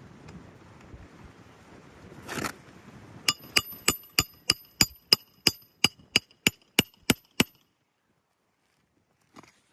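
Hammer striking a steel roof snake (shingle nailing tool) fourteen times, about three blows a second, each with a short metallic ring, driving a roofing nail under a shingle. A brief scrape or rustle comes just before the blows.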